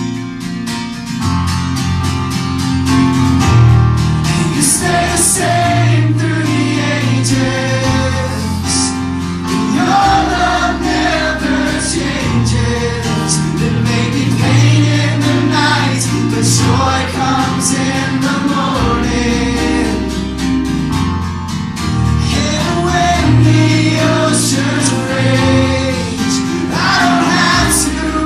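A live contemporary worship song: a band with held bass notes and crisp percussion strokes, and many voices singing the melody together.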